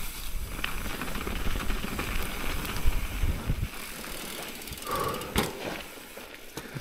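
Nukeproof Mega enduro mountain bike rolling down a rough dirt-and-gravel trail, its tyres crunching and the bike rattling over the bumps. The rumble eases a little past halfway as the bike slows, and there is a sharp click near the end.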